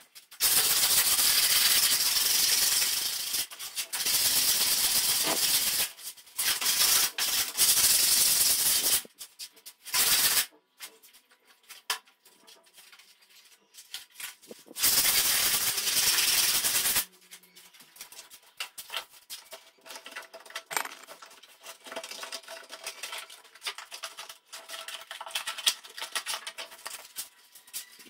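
Scratchy hiss of sandpaper rubbed by hand over a plastered wall, in several stretches of one to three seconds. It stops about two-thirds of the way through, leaving only faint scuffs and ticks.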